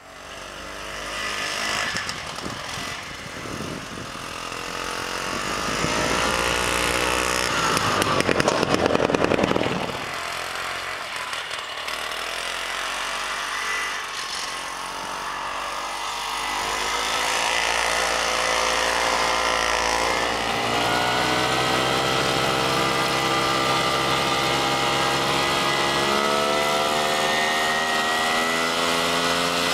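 Two-stroke Hirth 300 engine of a modified 1972 Baby Boa Ski snowmobile running under throttle. Its pitch climbs to a loud peak about eight to nine seconds in and drops away, then settles into a steady higher-pitched run that slowly rises toward the end.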